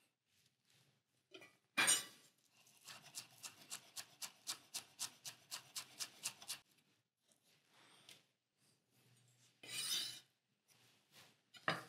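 Chef's knife finely chopping fresh chives on a wooden cutting board: a rapid, even run of light taps, about five or six a second, for nearly four seconds. A single sharper knock comes just before the run, and a short scraping burst comes near the end.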